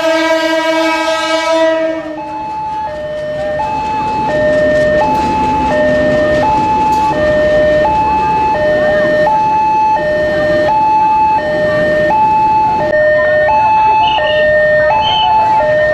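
Railway level-crossing warning alarm sounding a repeating two-tone signal, high and low tones alternating about every 0.7 s, as a train passes. A long train horn blast sounds over it for the first two seconds or so.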